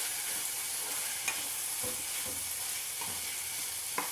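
Cauliflower, onion and capsicum sizzling in oil in a pan while a spoon stirs and mixes them, with a steady hiss and a couple of sharp clicks of the spoon against the pan, one about a second in and one near the end.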